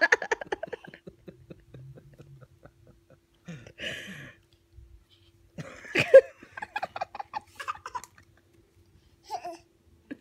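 Laughter in short rhythmic bursts, trailing off in the first second. There is a brief hiss about four seconds in, then a sharp knock and another run of laughter about six seconds in.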